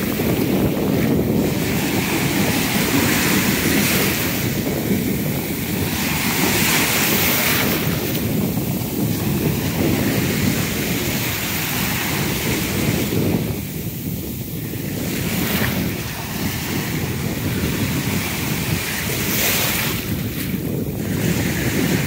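Heavy ocean surf breaking and washing in, a continuous rush that swells and eases with each wave, with wind buffeting the microphone.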